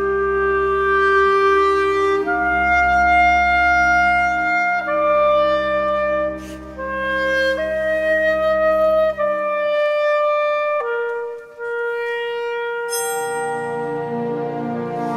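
Solo clarinet playing a slow line of long held notes over a low sustained orchestral accompaniment. The low accompaniment falls away about two-thirds of the way through, leaving the clarinet nearly alone, and other instruments come back in near the end.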